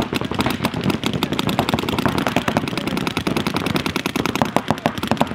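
Several paintball markers firing rapid strings of shots at once, a dense, unbroken crackle of pops.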